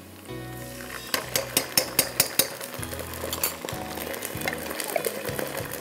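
Slotted spatula scraping and clicking against a non-stick wok while stirring ginger-garlic paste into onions frying in oil, with a light sizzle. The clicks come quickly for the first few seconds, then thin out.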